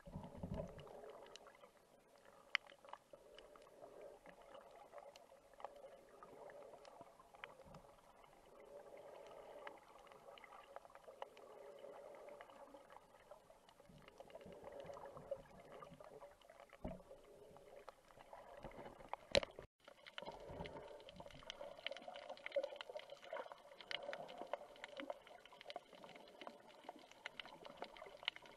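Underwater sound heard through a camera mounted on a speargun during a freedive: a faint, muffled water hiss with scattered small clicks and a few low thumps. One sharp click comes about two-thirds of the way through.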